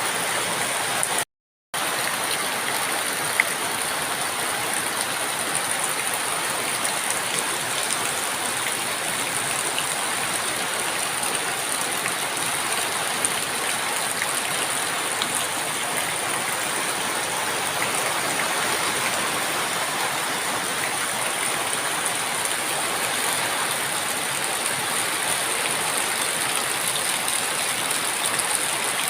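Rain falling steadily, an even hiss without a break in intensity. The sound drops out completely for a moment about a second and a half in.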